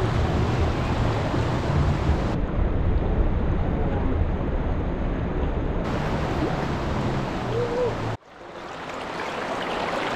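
Fast-flowing river water rushing over rocks, a dense steady hiss with a low rumble under it. It breaks off abruptly about eight seconds in and swells back.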